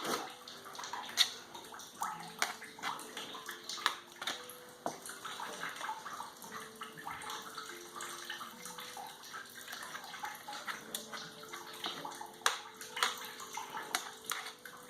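Wet sloshing and scraping with scattered knocks and clicks: soaked paper-and-sawdust pulp being scraped and handled around the press pans and bucket.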